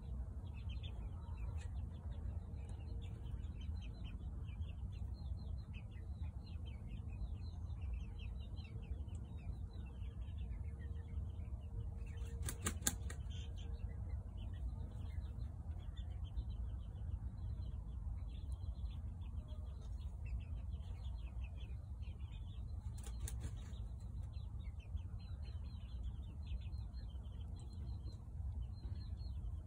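Serama rooster shaking out its feathers, a brief rustle about halfway through and again about three-quarters of the way in, over many short bird chirps and a steady low rumble.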